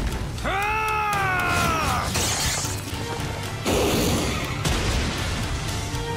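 Dramatic anime battle soundtrack: background music with crashing and rumbling destruction effects. A long wailing pitched cry rises and then falls about half a second in.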